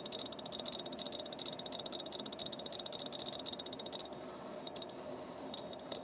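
Rapid, even mechanical chatter of many clicks a second with a high buzzing edge, from a 17-70mm f/2.8-4 zoom lens's motor, picked up by the camera's built-in microphone. It is the 'jackhammer noise' that such a lens puts onto the camera's own sound track. It runs steadily, then about two-thirds of the way through breaks into a few short bursts.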